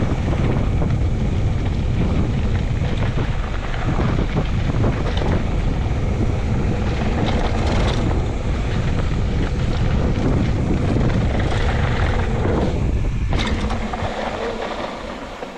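Mountain bike riding fast downhill: wind buffeting the camera microphone over the rattle and knocks of the bike on the trail. The noise drops off near the end.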